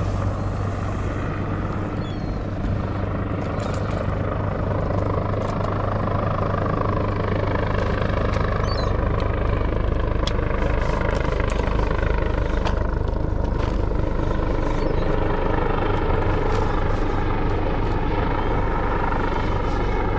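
Fishing boat's engine running steadily, a low droning hum, with a few faint clicks over it.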